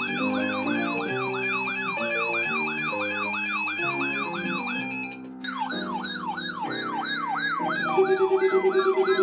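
Electronic siren sweeping up and down about three times a second over music. About halfway through it breaks off briefly and starts again. Near the end a loud, rapidly pulsing low tone joins in.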